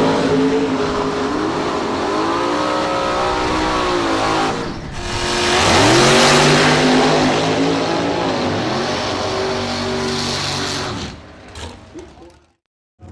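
Drag race car engines at full throttle, accelerating down the strip with their pitch climbing. A fresh loud launch comes about five seconds in, and the sound fades away near the end.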